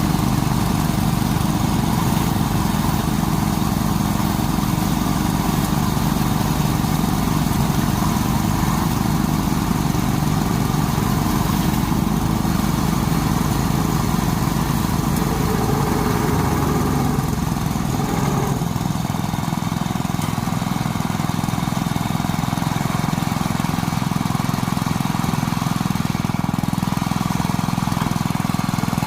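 Small engine running steadily without a break, its low hum thinning a little just past halfway.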